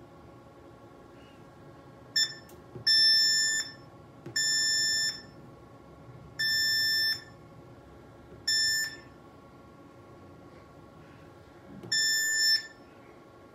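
Smart-Wave BS-SWT2X shockwave therapy machine beeping as its touchscreen menu is tapped: six high, steady electronic beeps at irregular intervals. Each beep is under a second long, and the first is very brief.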